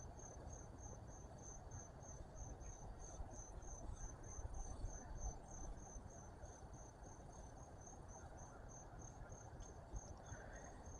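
A cricket chirping faintly and steadily, a thin high-pitched chirp repeated about four times a second.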